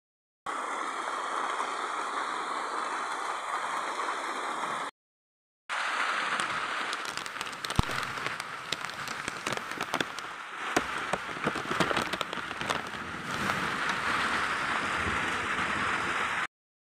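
Steady rain hissing, with scattered sharp taps and crackles from about six seconds in. The sound drops out briefly near the start and again about five seconds in.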